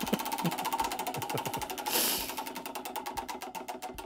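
Homemade lazy-susan roulette wheel spinning and ticking rapidly, the ticks spreading out as the wheel slows toward a stop. A brief hiss comes about halfway through.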